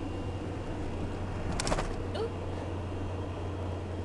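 Steady engine and road drone heard from inside a moving car's cabin at motorway speed, with a brief clatter about a second and a half in.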